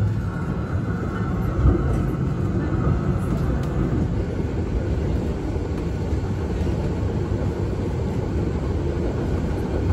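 Z3-class tram in motion, heard from inside at the door: a steady rumble of wheels on rail and running gear, with one brief knock a little under two seconds in.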